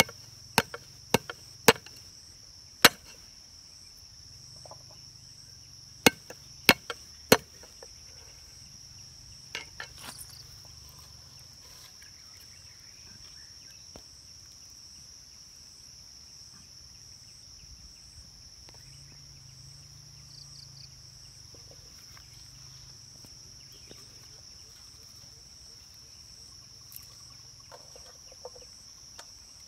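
Knife chopping on a wooden cutting board: sharp knocks, about four in the first three seconds and three more about six seconds in, with a few lighter ones near ten seconds. Insects drone steadily and high-pitched behind it.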